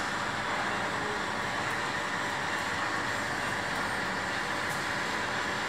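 Model train running along the layout's track, giving a steady hiss-like running noise that holds level throughout.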